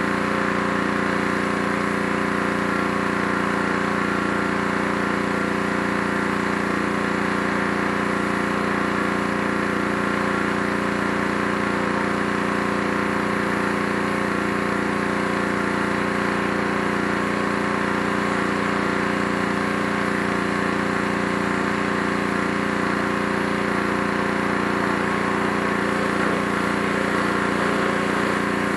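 Small gas engine of a pressure washer running at a steady pitch, with the hiss of the high-pressure spray on the wooden deck.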